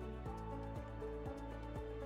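Background music: held chords over a steady beat of about two beats a second, the chord changing shortly after it begins.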